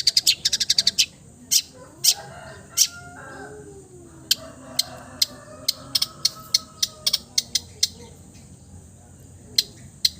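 Long-tailed shrike (cendet) calling: a fast rattle of sharp ticking notes at the start, then scattered sharp notes, with a quickening run of them between about four and eight seconds in. Softer, wavering warbling runs faintly underneath.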